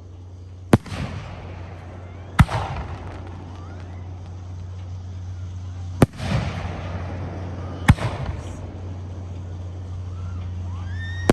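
Firework shells bursting overhead: four sharp, loud bangs spaced a couple of seconds apart, each trailing off over about a second, with faint rising whistles in between.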